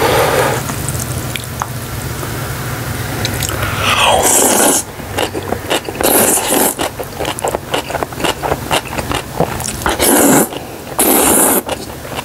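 Close-miked eating of jjajangmyeon: wooden chopsticks stir the noodles in black bean sauce, then the noodles are slurped loudly several times, around 4, 6, 10 and 11 seconds in. Wet chewing and mouth clicks fill the gaps between the slurps.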